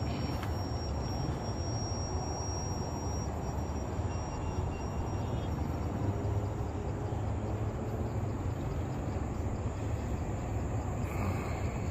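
Steady low rumbling outdoor noise with no distinct events, with a faint thin high tone during the first few seconds.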